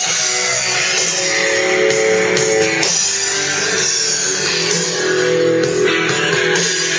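Guitar-led music playing through an Arctic Cat's aftermarket speaker system of Polk Marine woofers and tweeters with Kicker woofers.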